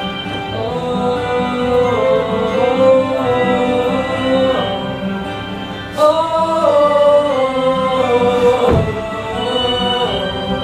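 Sustained singing over instrumental accompaniment: long held chords that shift every couple of seconds, swelling suddenly louder about six seconds in.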